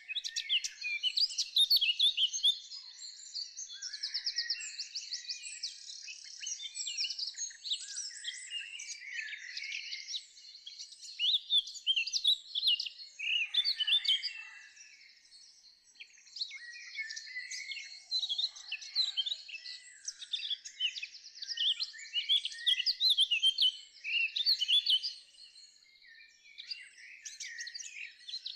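A chorus of songbirds singing, many overlapping chirps, whistles and fast trills, all high-pitched with nothing low beneath them.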